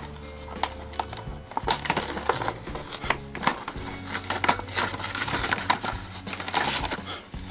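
Clear plastic blister packaging crackling and crunching as it is pried open by hand, with many sharp, irregular crackles.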